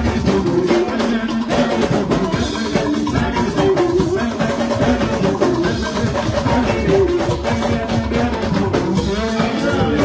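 Live band music with a steady drum-kit beat and instruments, possibly with singing.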